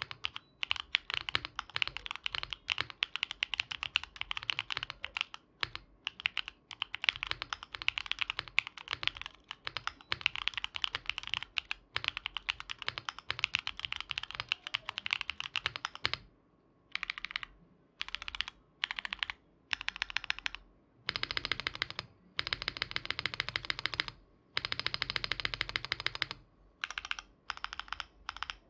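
Mode Envoy mechanical keyboard with Gateron Baby Kangaroo switches, an aluminium plate and GMK keycaps being typed on, a fast run of clacky keystrokes. After about sixteen seconds the typing breaks into short bursts with pauses between them, two of the longer bursts sounding deeper.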